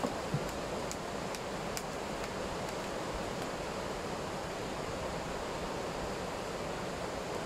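River water rushing steadily over a low weir, with two light knocks in the first half-second.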